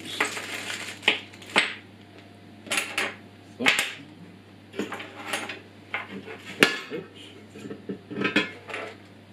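Metal parts of a Powerfix angle grinder stand clinking and clattering on a wooden tabletop as they are picked up, sorted and set down: a series of irregular short knocks and rattles, the sharpest about two-thirds of the way through.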